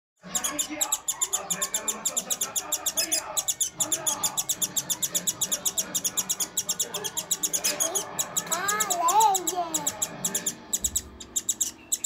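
Indian silverbill chick giving fast, high-pitched begging calls, about five a second in an even run, its beak gaping to be fed.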